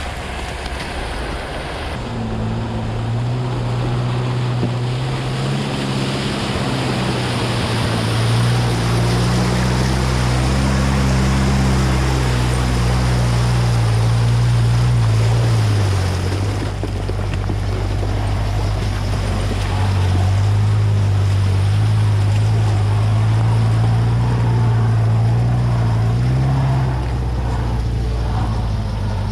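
An off-road 4x4's engine running under load, its revs rising and falling with the throttle, over a steady rushing noise.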